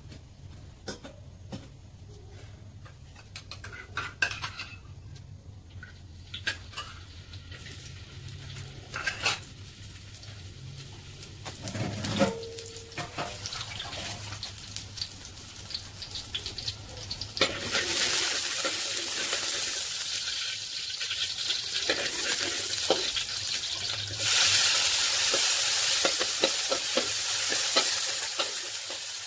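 Garlic and chopped tomato frying in hot oil in a wok, with a metal spatula scraping and tapping the pan. The first half holds only a low steady hum and light clicks. Sizzling starts a little past halfway and gets louder again later.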